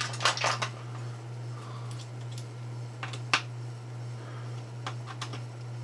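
Scattered light metallic clicks and taps of a hand driver and tooling being handled at the chuck of a benchtop mini lathe: a quick cluster just after the start, two more about three seconds in, and a few faint ones near the end. A steady low hum underlies it.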